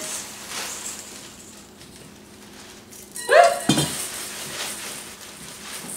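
Puffed rice cereal poured from a bag into a stainless steel mixing bowl, with a metal spoon clanking and scraping against a saucepan a little over three seconds in, the loudest sound.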